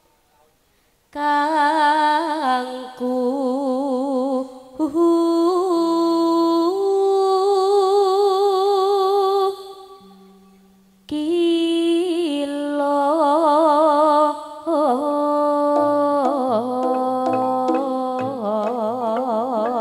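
Javanese female singer (sinden) singing long, held phrases with strong vibrato through a PA, starting about a second in and pausing briefly midway. Low instrument tones and short struck notes join under the voice in the last few seconds.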